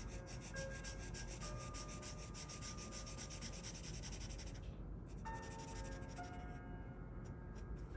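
Felt-tip marker scribbling rapidly back and forth on sketchbook paper, colouring in a shape. The strokes come thick and fast, then thin out after about four and a half seconds.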